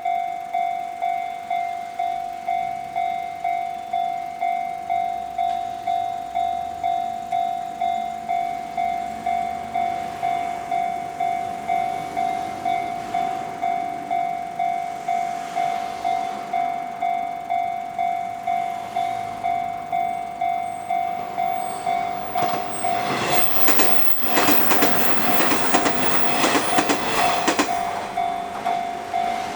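Japanese level-crossing warning bell ringing in a steady, even kan-kan rhythm. About 22 seconds in, an electric train passes through the crossing for about six seconds, its wheels clattering over the rail joints while the bell keeps ringing.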